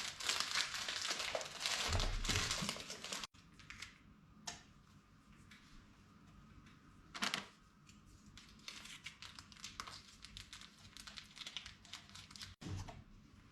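Plastic packaging of an instant-noodle pack crinkling and tearing as it is opened, loudest for the first three seconds, then quieter rustling with a couple of light knocks.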